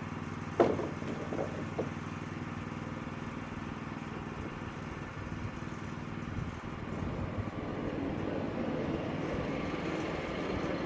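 Sawmill engine running steadily, with one sharp knock about half a second in and two lighter knocks soon after. It grows somewhat louder from about two-thirds of the way through.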